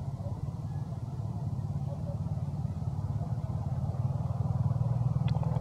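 A motor vehicle engine running steadily, getting louder over the last second or two.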